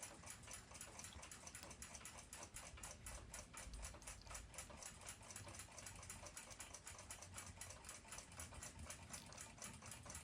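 Faint, rapid, even ticking of a mechanical clock movement's balance and escapement running.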